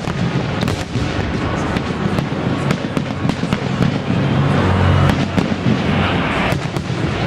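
Fireworks display: aerial shells bursting over a continuous low rumble, with many sharp crackles and pops throughout. The booming is heaviest about four to five seconds in.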